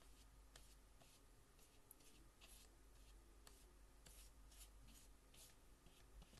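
Faint, soft swishes of a wide flat watercolour brush stroking across paper, about ten short strokes at an uneven pace.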